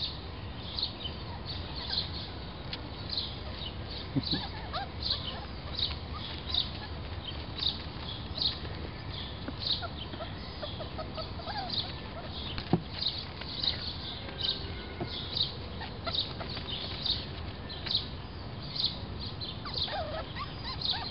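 A bird repeating a short high call over and over in a steady rhythm, a little over once a second.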